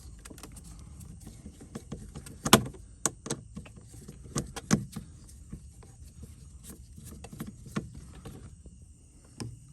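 Irregular clicks and taps of a hand screwdriver working a screw out of a car's interior door trim, with handling noise against the plastic; the sharpest click comes about two and a half seconds in.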